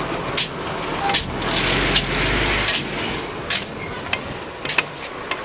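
Trash collection at a rear-loader garbage truck: about six sharp knocks and bangs in five seconds over the truck's low engine rumble. The rumble drops away about halfway through.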